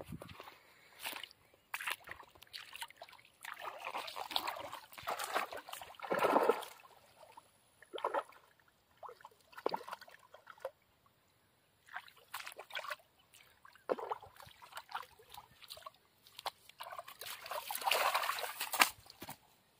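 Shallow water sloshing and splashing in irregular bursts as a hooked fish is hauled in by hand, with the fish thrashing and splashing loudest near the end.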